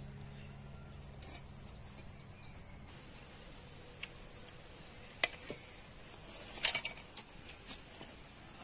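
Background music fading out over the first couple of seconds, then faint outdoor ambience. It holds a quick series of high chirps and a few scattered light clicks and taps.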